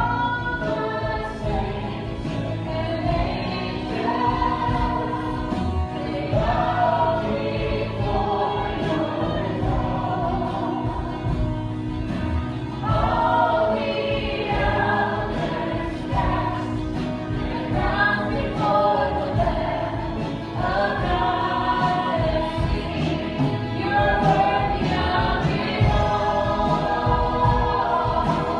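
Worship music: a group of voices singing a gospel-style song over instrumental accompaniment.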